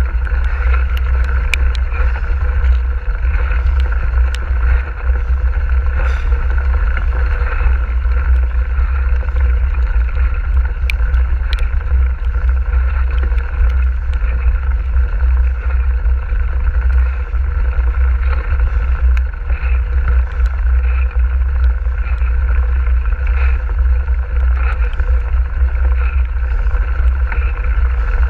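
Mountain bike riding a wet gravel track: a steady, heavy rumble of wind buffeting the action camera's microphone, mixed with the hiss of tyres rolling over wet stones and scattered small clicks and rattles.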